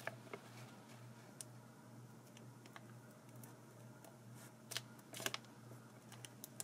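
Scissors cutting slowly through the sealed foil edge of a trading-card pack: sparse faint clicks and snips, with a couple of louder snips about five seconds in, over a faint low hum.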